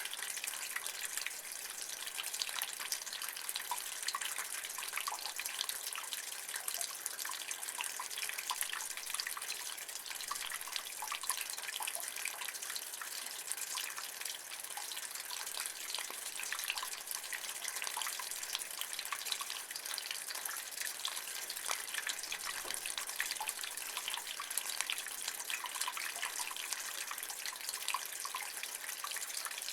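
Rainwater running and dripping in a rain gutter: a steady splashing trickle with many small drips, unchanging throughout.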